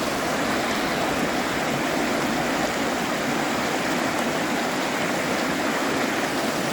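River water rushing steadily over rocks, an even, unbroken noise of flowing water.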